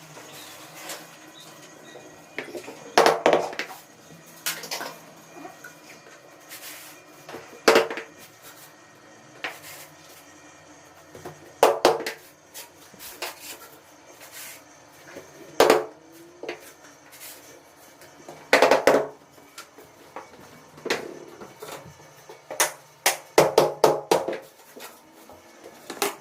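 Sharp knocks and clacks of laminate flooring boards being handled and set down, at irregular intervals, with a quick run of taps near the end.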